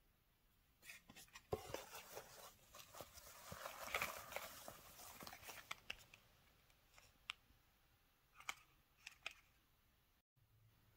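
Quiet rustling and crinkling of shredded paper filler and small paper packaging being handled in a gift box, loudest in the middle, followed by a few faint clicks.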